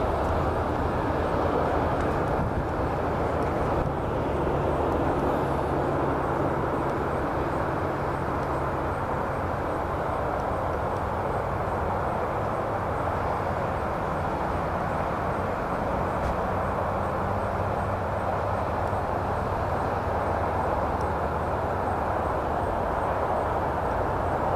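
Steady mechanical drone: a low engine-like hum under an even rushing noise, with no change in level.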